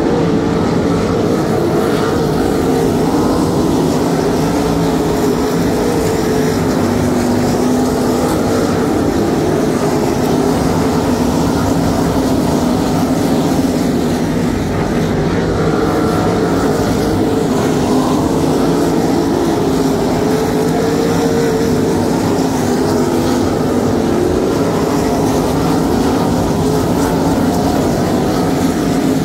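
A pack of 305 winged sprint cars racing on a dirt oval, their small-block V8 engines running loud and continuous, the pitch wavering up and down as cars pass and circle the track.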